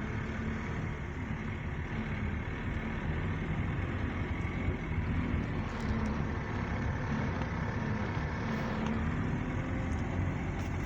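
Steady engine and road noise of a moving vehicle, heard from inside it: an even low hum with no sharp events.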